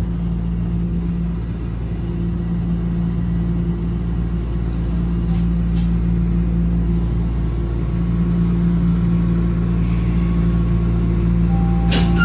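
Inside a Toronto Rocket subway car, the train's motors and wheels run with a steady low rumble and hum as it slows to a stop at a station platform. A brief high whine and a couple of clicks come about four to six seconds in, and another click comes near the end.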